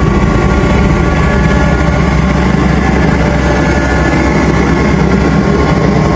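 An engine running steadily and loudly, with a constant low hum.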